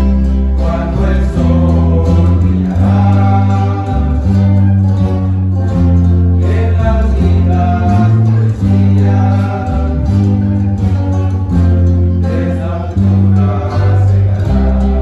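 Rondalla playing: several acoustic guitars strumming and mandolins plucking over a steady bass line that changes note about every second, with voices singing together.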